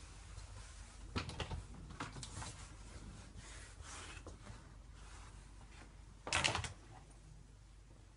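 Quiet room with scattered light knocks and rustles as a handheld phone is carried through small rooms, and one louder rustle, under half a second long, a little over six seconds in.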